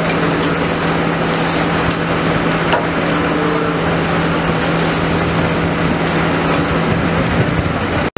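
Steady low engine drone of a fire engine's pump running, under a constant rushing hiss from the barn fire and the hose spray. It cuts off for a moment near the end.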